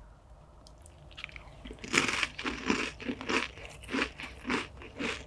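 Close-miked crunching and chewing of a caviar canapé, starting about two seconds in and going on at about three crunches a second.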